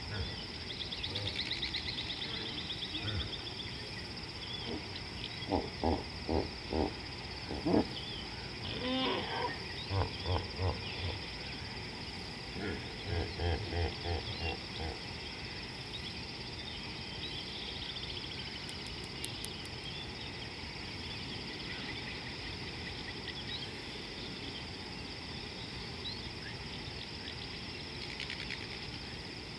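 An unseen animal calling in three runs of rhythmic, deep grunting pulses, about two a second, in the first half; a steady high insect drone goes on underneath, with a short bird trill near the start.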